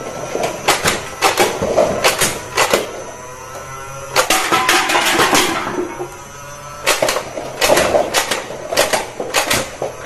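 Plastic toy guns clicking in short rapid bursts, as their triggers and cocking mechanisms are worked. About four seconds in comes a longer continuous rattle of about a second and a half.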